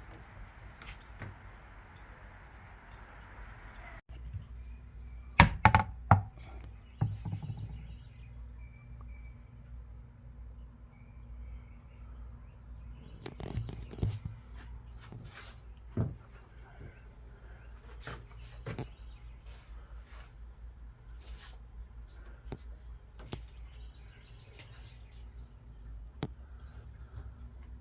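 Scattered knocks and thuds, the loudest cluster about five to seven seconds in and a few more later. Short high bird chirps come about once a second during the first few seconds.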